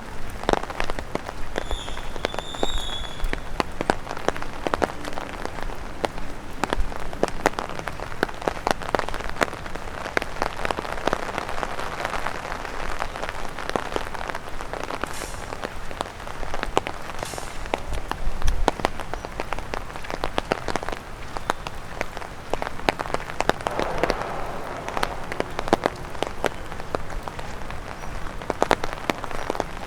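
Rain and drops falling from overhead tree leaves tapping on an umbrella: a dense, irregular patter of sharp taps over a steady hiss of rain.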